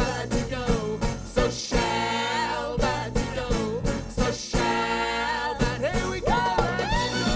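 Live folk-rock band playing an instrumental passage: fiddle carrying the melody over strummed twelve-string acoustic guitar, bass guitar and drums, with the fiddle sliding between notes near the end.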